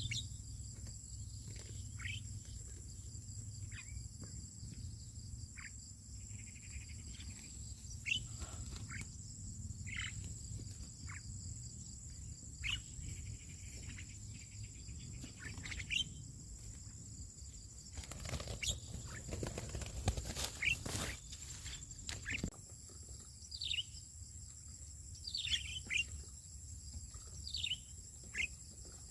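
Birds giving short chirps that slide downward in pitch, scattered irregularly, over a steady high insect buzz. About two-thirds through comes a few seconds of rustling noise.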